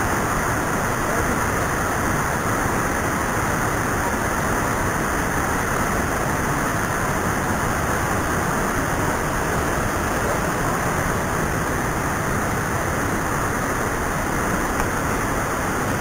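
Waterfall falling into a rock pool: a steady, unbroken rush of water.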